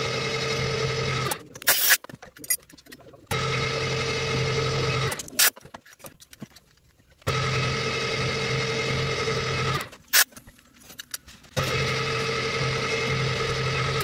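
Milling machine running with a steady hum and whine as an end mill cuts a hole in a finned heat sink block. It starts and stops abruptly four times, each run about two seconds, with a few sharp clicks in the gaps.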